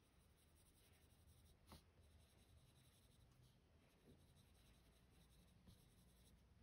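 Faint scratching of a Prismacolor colored pencil shading on paper, with one sharp click a little under two seconds in.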